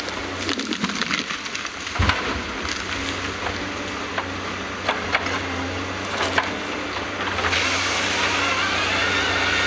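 Tracked forestry harvester's diesel engine running steadily while its harvester head handles a log, with wood cracking and snapping throughout and a heavy thud about two seconds in. The machine gets louder for the last two seconds.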